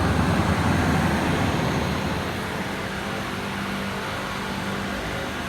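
Steady low rumble of motor-vehicle noise. It is louder and uneven for the first two seconds, then settles into an even hum.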